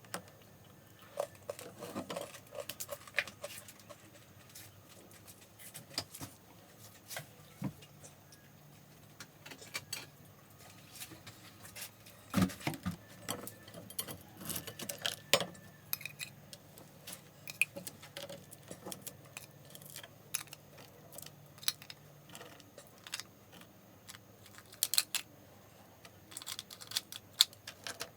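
Irregular light clicking and clattering of hard objects being handled in a kitchen, with a few louder knocks, the strongest about twelve seconds in.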